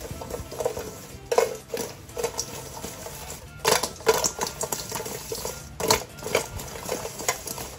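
Fried chicken wings tossed in a stainless-steel mixing bowl with butter: the wings slide and slap against the metal as the bowl is shaken, with several sharper knocks, the loudest a little over a second in, around the middle and about six seconds in.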